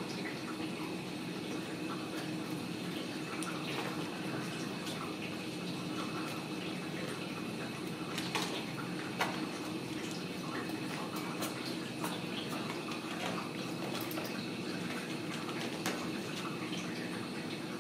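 A steady hiss with a low hum, broken by a few faint light taps and scrabbles from kittens' paws on a hardwood floor.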